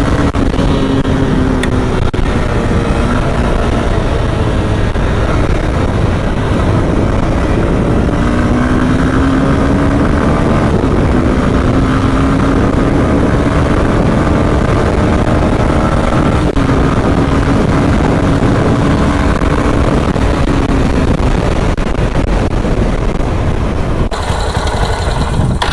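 Motorcycle engine running under a loud, steady rush of wind noise. The engine note wavers slightly up and down, and the sound changes near the end.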